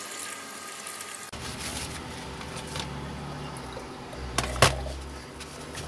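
Tap water running into a stainless steel sink as slices of raw beef are rinsed under it, with a sharp knock about four and a half seconds in.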